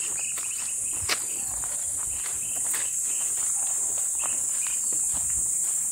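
Insects keep up a steady high-pitched drone. Scattered taps and footsteps sound under it, with one sharp click about a second in.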